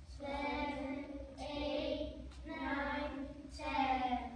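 A group of children counting aloud in unison, drawing out each number, about one a second. A steady low hum runs underneath.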